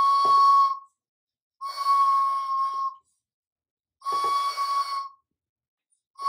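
Toddler blowing a small plastic toy horn: three toots on one steady high note, each about a second long with short gaps between, and a fourth starting right at the end.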